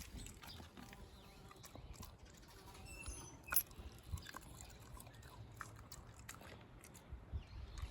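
A Shiba Inu moving about, making scattered faint clicks and taps, with a few brief high squeaks around three seconds in and one sharper click just after.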